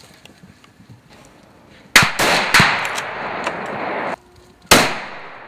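Hunting rifle shots: three in quick succession about two seconds in, their echo rolling on until it cuts off suddenly, then one more shot near the end that echoes away.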